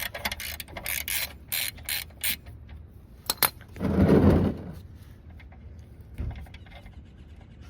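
Ratchet with a 17 mm socket clicking in short strokes on an oil pan drain plug, followed by a louder, deeper burst of noise about four seconds in, then a few scattered clicks.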